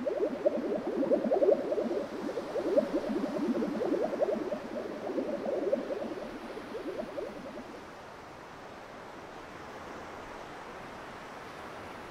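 Water bubbling and gurgling, dense and fast, as flood water drains away. It dies away about eight seconds in, leaving a steady soft hiss.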